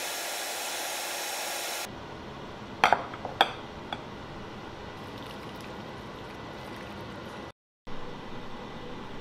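A steady hiss for about two seconds, then a few sharp clinks of chopsticks and tableware against glass and ceramic bowls about three seconds in, over faint room noise.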